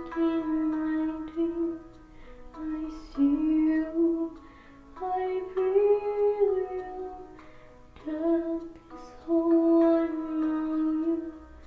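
A woman's voice singing a melody in long held notes, in phrases with short pauses between them.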